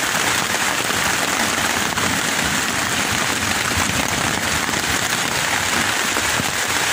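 Steady rain pouring down on the woods, heard from inside a tent through its open vent.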